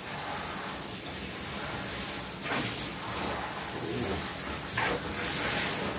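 Handheld shower sprayer running, water spraying steadily onto a small dog's wet coat and splashing into a bathtub, with two brief louder splashes about two and a half and five seconds in.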